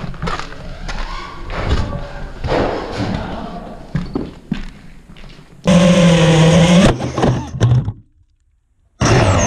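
FPV quadcopter's motors and propellers whirring, with knocks and thunks as it clips walls. A much louder steady buzz starts suddenly, then the sound cuts out for about a second before coming back.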